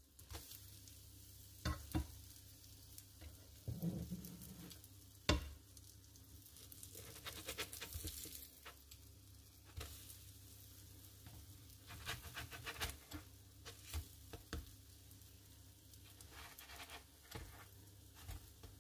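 Small pancakes sizzling gently in butter in a non-stick frying pan on a medium heat. Scattered taps and scrapes sound as a slotted spatula slides under them to turn them.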